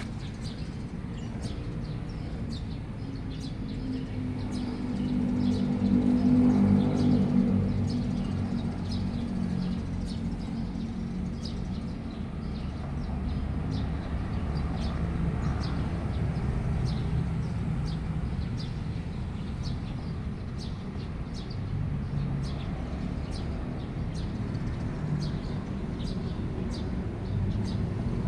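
Kitten purring steadily while its chin is scratched, a low rumble that swells louder about five seconds in. Faint high chirps sound throughout.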